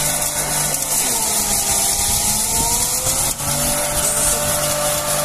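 Electric straw-and-grain crusher running while loose straw is fed in by hand and shredded: a steady motor hum and the rushing hiss of chopped straw blown out of the chute, with a whine that slowly wavers in pitch as the load changes.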